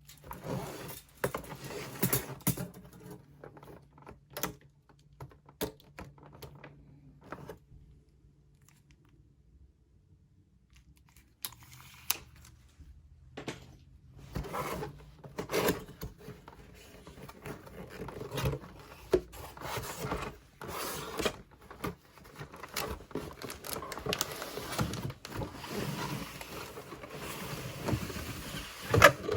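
Unpacking and handling of a small camping stove set and its packaging: scattered clicks, knocks and scraping. The handling goes quiet briefly, then turns busier and more continuous in the second half, with a sharp knock near the end.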